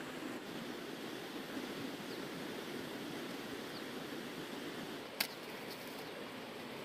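Steady outdoor background hiss over a field, with no distinct source, and a single sharp click about five seconds in.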